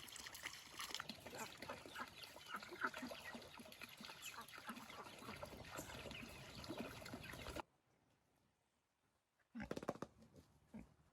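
A clamour of many short, overlapping farm-animal calls that cuts off abruptly about seven and a half seconds in. After a pause of near silence, a brief louder burst of sound follows near the end.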